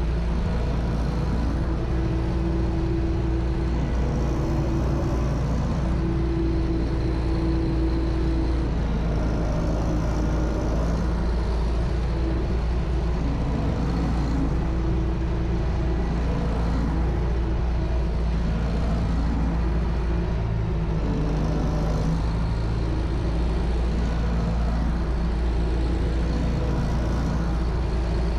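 U650 tractor's diesel engine running steadily under load while pulling a plough, heard from inside the cab.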